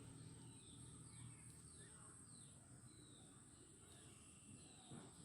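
Faint outdoor ambience: small birds calling in short, repeated falling chirps over a steady high-pitched hiss.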